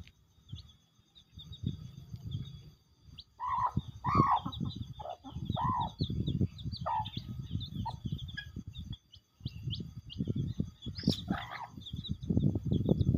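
Village chickens (ayam kampung) feeding: a hen gives short clucks, mostly between about three and seven seconds in and once more near the end, while her chicks keep up quick, high peeping. A low rumble runs underneath.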